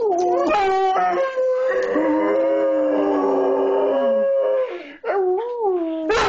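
A German shorthaired pointer and a Jack Russell terrier howling together: long, drawn-out howls that overlap, with notes that waver and bend, and a short break about five seconds in.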